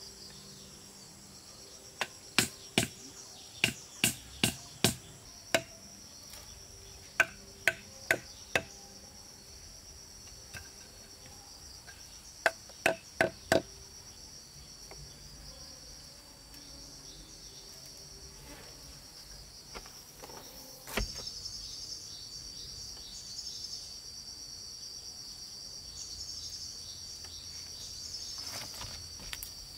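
Hard knocks in three quick runs of strikes, about two to three a second, like hammer blows on building material, with a single thud about twenty seconds in. Under them a steady high chirring of insects, louder in the second half.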